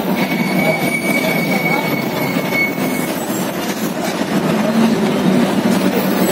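Steady rumble and road noise heard from inside a moving vehicle on a highway. A thin, high whine runs through the first half and stops about three seconds in.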